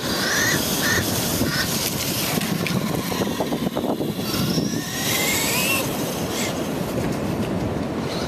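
Traxxas Slash RC truck's brushless motor whining, its pitch rising and falling as the throttle changes, over steady surf and wind noise.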